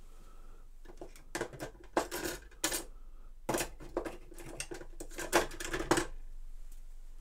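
Clattering and rustling handling noise from a person reaching across a workbench close to the microphone, in quick irregular bursts from about a second in until about six seconds in, with a short pause halfway through.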